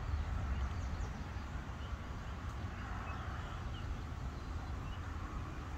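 Outdoor ambience by a river: a steady low rumble of wind on the microphone, with a few short bird chirps.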